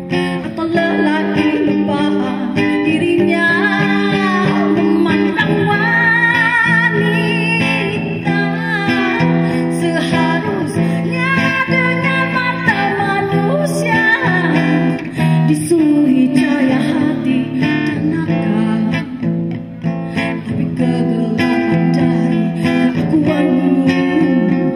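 A woman singing a slow melody with vibrato into a microphone over a strummed guitar accompaniment.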